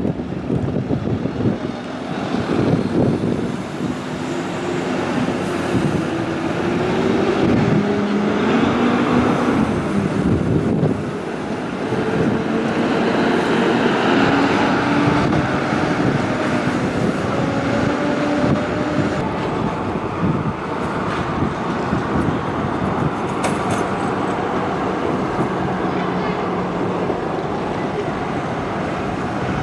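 City buses pulling away and passing in street traffic, their engine and drive notes rising and falling in pitch as they move off and change speed.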